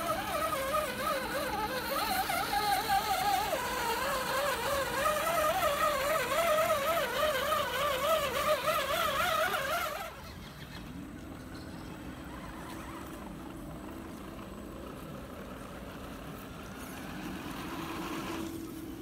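Electric motor and gears of a radio-controlled scale crawler whining, the pitch wavering rapidly up and down with the throttle. About ten seconds in it cuts abruptly to a quieter, lower steady hum.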